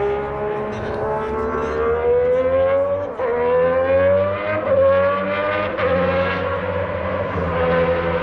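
Historic Honda V12 Formula One car accelerating hard, its engine note climbing and briefly dropping at each upshift, about three, four and a half, and six seconds in.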